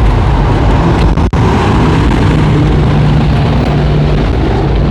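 Loud, steady low rumble of motor-vehicle noise, briefly cutting out about a second in.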